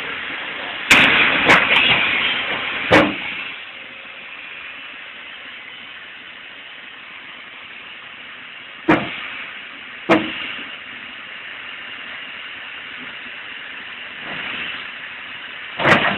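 Hydraulic excavator working in mud: a steady hiss broken by sharp knocks and clanks. Four come close together in the first few seconds, then two more about a second apart midway and one near the end.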